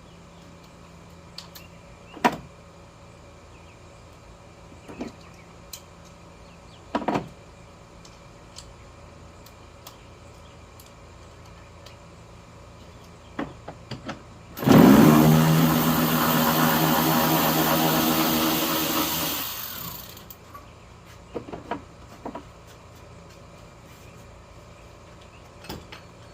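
A few light metallic knocks and clicks, then a loud motor whir of about five seconds that rises in pitch as it starts, holds steady and dies away.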